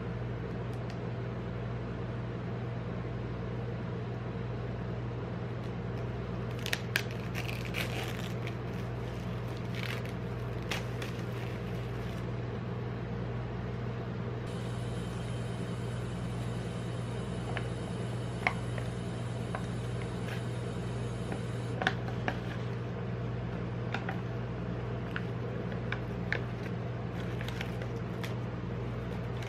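Steady hum of an ice-cream-roll machine's refrigeration unit running under the frozen cold plate, with scattered crinkles and clicks as an instant noodle cup's paper lid is peeled off and its plastic seasoning sachets are handled.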